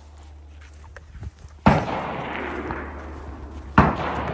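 Two gunshots about two seconds apart, each a sharp bang followed by a long echoing tail.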